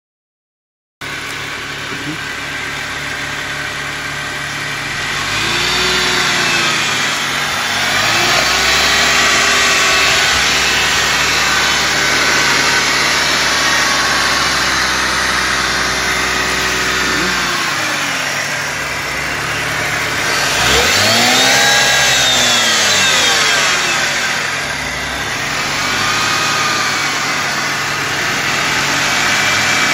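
BMW E46 engine idling and being revved about five times, each rev rising and falling in pitch, the highest about 21 seconds in. Around that rev there is a grinding, drilling, metallic noise whose cause the owner does not know.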